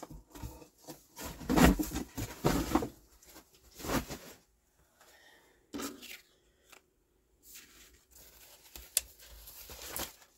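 Small cardstock swatch squares being gathered into a pile and slid across a wooden tabletop by hand: paper rustling and scraping in several short bursts with quiet gaps between.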